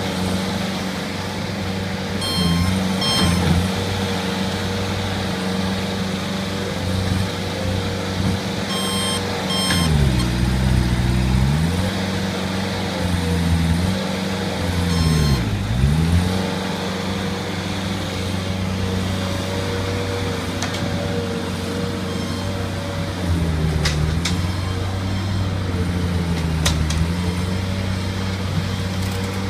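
Bobcat skid steer loader's diesel engine running steadily, its speed dipping sharply and recovering twice, about ten and fifteen seconds in. Its backup alarm beeps in short groups near the start and again about nine seconds in.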